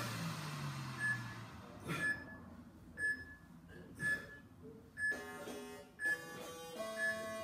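Interval timer beeping once a second, a short high beep each time, counting down the end of a Tabata work period. Background music fades out near the start, and a new track with plucked notes comes in about five seconds in.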